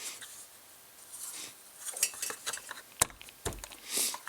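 Sharp knocks on a wooden speaker kit case being beaten to force its friction-fit pegs into their slots. Lighter clicks and rattles come about two seconds in, then two loud strikes about half a second apart.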